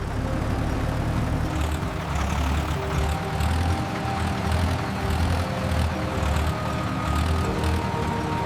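Tractor engine running steadily as the tractor drives off, a low drone that pulses about once a second.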